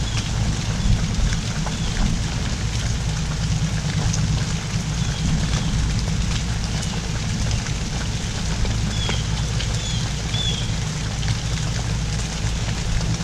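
Steady heavy rain pouring down, with many separate drips and splashes, over a low, steady hum.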